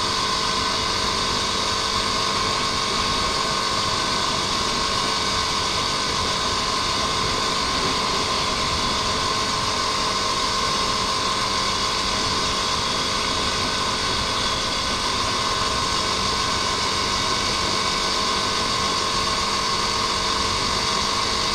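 Motorcycle engine running at a steady cruising speed, its note holding one pitch, under a constant rush of wind and road noise on the bike-mounted microphone.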